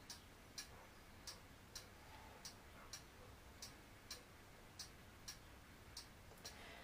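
Faint, even ticking, about two ticks a second, over near silence.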